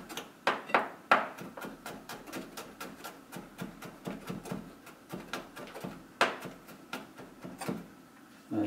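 Chef's knife chopping cut cherry tomatoes on a plastic cutting board: rapid, even knocks of the blade on the board, about three to four a second, with a few harder strikes about a second in and again around six seconds in.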